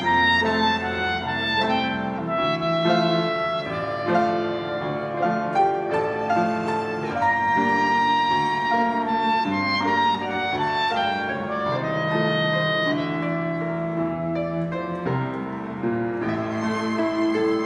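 Chamber quartet of piano, cello, violin and clarinet playing a waltz together, with long held notes over the piano.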